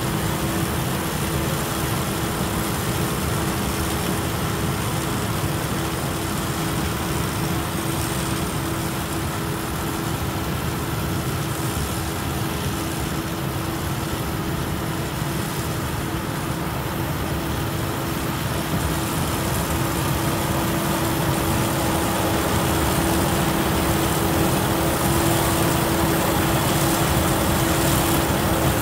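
Yanmar YH6115 rice combine harvester running steadily as it cuts rice, a continuous engine and machinery drone with a steady hum in it. It grows a little quieter in the middle and louder again near the end.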